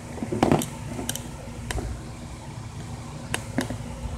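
Steady hum and low rumble of an electric fan running in a small room, with a short bump about half a second in and a few scattered clicks from the camera being handled.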